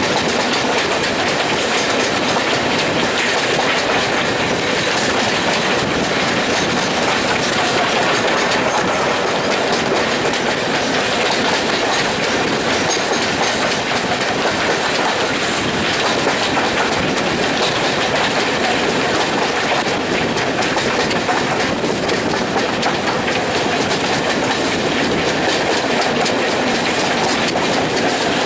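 Steam-hauled passenger train running along the line: a steady, unbroken noise of wheels on the rails.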